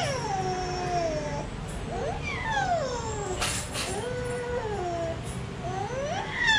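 A sick baby, nearly a year old, moaning and whimpering in a string of drawn-out wails that mostly slide down in pitch: cries of pain from a gravely ill child with a swollen belly.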